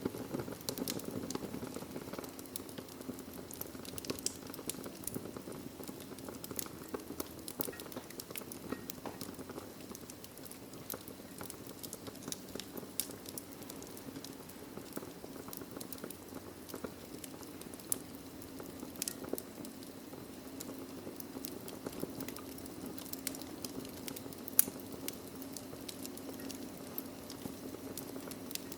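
Wood fire burning in a fireplace: a steady low rush of flames with frequent small crackles and pops, one sharper pop near the end.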